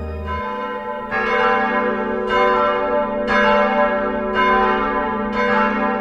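Church bells ringing, a new strike about once a second, each one ringing on into the next over a steady low hum.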